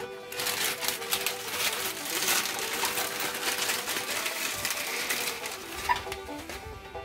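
Broken cookies being crumbled by hand over a bowl of banana pudding: a dense dry crunching and crackling with many small snaps, stopping about a second before the end. Soft banjo music plays underneath.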